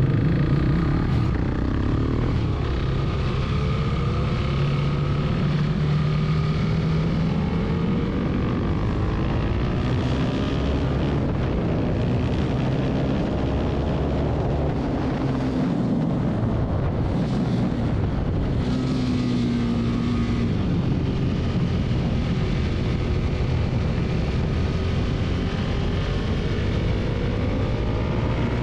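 Husqvarna 701 Supermoto's single-cylinder engine running hard at track pace, its pitch repeatedly climbing and dropping with gear changes and braking.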